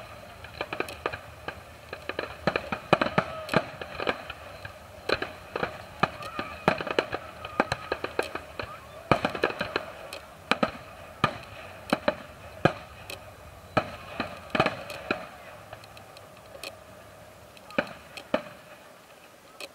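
Fireworks display: aerial shells bursting with sharp bangs in quick succession, thinning out to a few scattered bangs near the end.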